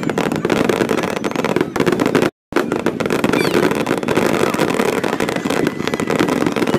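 Fireworks display recorded on a phone: a dense, continuous crackling of bursting shells, broken by a brief cut to silence about two and a half seconds in.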